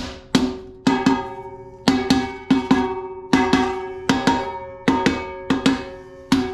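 Light aluminium hubcap being knocked home onto a wheel: about eighteen sharp knocks at uneven spacing, often in quick pairs, each leaving the hubcap ringing.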